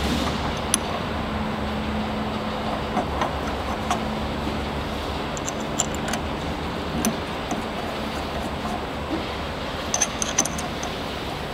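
Scattered small metallic clicks and taps as a stainless-steel end plate is handled and fitted onto a piston filler's rotary valve housing, over a steady low hum. The sharpest clicks come about a second in and twice near the end.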